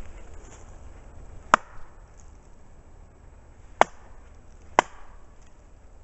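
Three sharp knocks of a wooden club struck against a tree trunk: one, then after about two seconds two more a second apart. Tree knocks struck to call for an answering knock.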